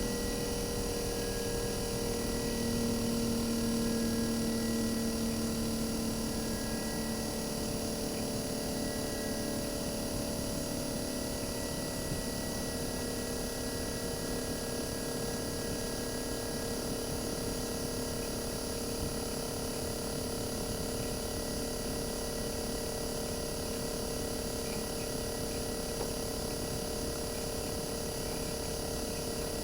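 RECHI 43W26SH single-rotary inverter compressor from a Sharp AU-J25XY air conditioner outdoor unit, heard bare with the unit taken apart, running steadily as an even hum and whine made of several steady tones. A lower hum swells for several seconds about two seconds in, then settles.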